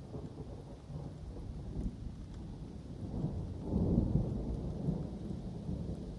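Thunder rumbling through steady rain in woodland, the low rumble swelling to its loudest a little under four seconds in, then slowly easing off.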